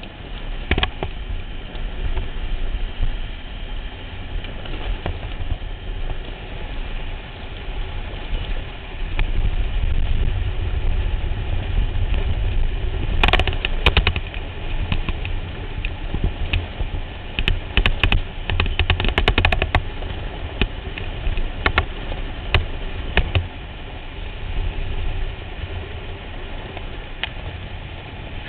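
A pickup truck driving fast on a gravel dirt track, heard from a microphone mounted outside on its body: heavy wind buffeting and tyre and road rumble. Sharp clicks and knocks come in a cluster about halfway through and again over several seconds after that.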